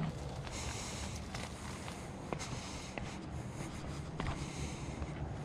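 Footsteps on dry grass and a dirt path, with rustling and scattered light ticks.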